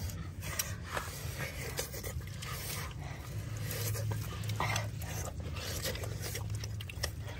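Close-up eating sounds: people chewing barbecued pork leg with their mouths open, with many short wet smacks and clicks of lips and tongue.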